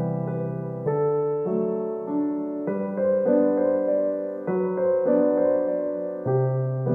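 Piano music: slow, sustained chords, changing roughly once a second.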